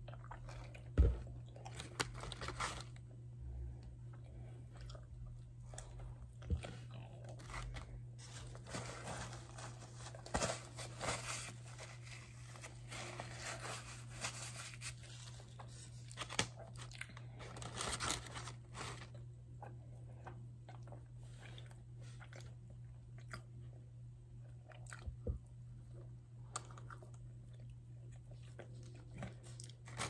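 Close-miked chewing and biting of food in a person's mouth, with frequent small crunches and wet mouth clicks, busiest in the middle. A steady low hum runs underneath.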